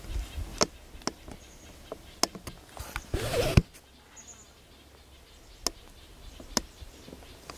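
Scattered small clicks and a short rustle ending in a sharp knock about three and a half seconds in, over quiet woodland, with a brief high bird chirp just after.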